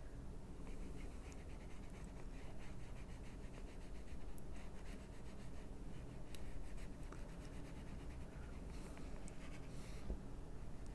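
Faint soft brushing of a water brush's bristles on coloring-book paper, wetting and blending watercolor pencil, with a few small ticks over a low steady hum.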